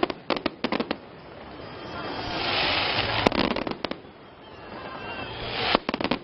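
Aerial fireworks salute: three times, a hiss swells up and ends in a quick cluster of sharp cracks as the shells burst into crackling stars.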